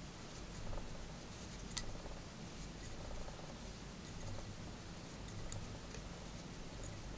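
Quiet fly-tying handling as red thread is wound onto the hook in a vise: faint scattered ticks and one sharper click about two seconds in, over a low steady hum.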